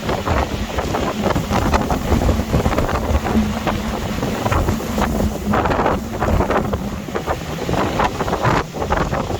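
Storm-force wind gusting hard and buffeting the microphone in uneven surges, with a faint steady low hum in the middle.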